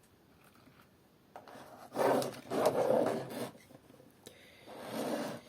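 Scraping and rubbing handling sounds as a soap-flower arrangement is worked on, in two spells: a longer one about two seconds in and a shorter one near the end.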